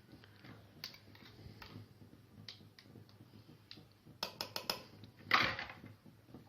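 Kitchenware being handled: faint taps, then a quick run of about five sharp clicks a little past four seconds in, and a louder clatter about a second later.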